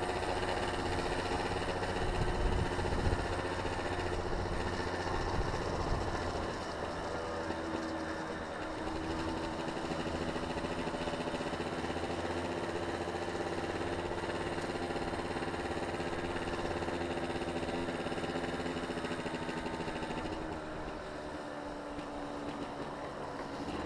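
Steady rolling road noise of fast travel down an asphalt lane, with a humming tone that shifts in pitch and a heavy low rumble during the first several seconds.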